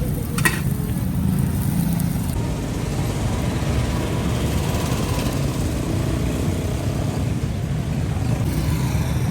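Steady low rumble of street traffic and vehicle engines, with a single sharp click about half a second in.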